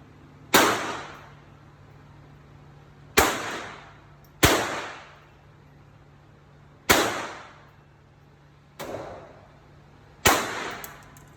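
Single gunshots fired one at a time, six sharp cracks spaced one to two and a half seconds apart, each trailed by a short echo. The shot about nine seconds in is fainter than the rest.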